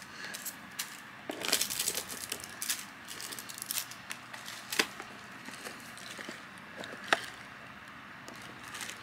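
Small hard plastic case being handled and turned over: scattered clicks, taps and light rustling, with a busier stretch about one and a half seconds in and two sharper clicks near five and seven seconds in.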